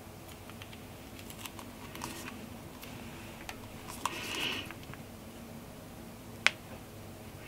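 Small plastic hand cream tube being handled: faint clicks of the cap and tube, a brief soft rub about four seconds in, and a sharp click near the end.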